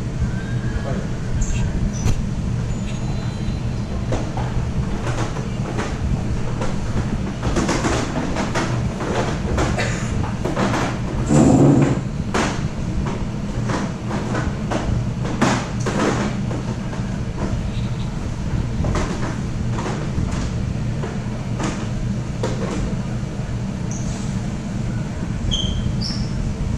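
Room ambience: a steady low hum with scattered knocks, clatter and rustling of people moving about, and one louder bump about halfway through.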